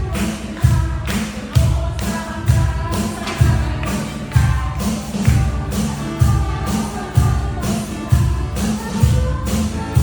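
Worship music with a steady beat: a strong low drum hit a little under once a second, bright high hits, and held melody notes over them.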